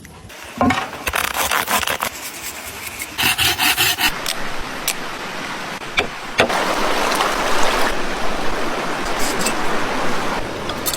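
Scraping and rubbing in short bursts with sharp clicks and knocks, then a steadier rough hiss from about six seconds in that dies away near the end.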